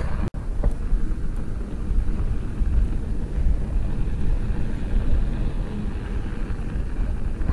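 Steady low rumble of wind on the microphone, with tyre noise from a bicycle rolling along a snow-packed road while riding.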